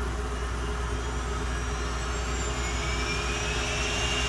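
2.2 kW air-cooled CNC spindle spinning up: a whine that rises in pitch for about two seconds, then holds steady, over a steady rushing hum of background machinery.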